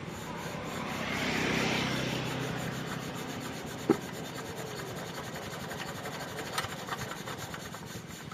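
Diesel water pump engine running steadily with a fast, even beat. A rasping noise swells and fades about a second in, and a single sharp click comes near four seconds.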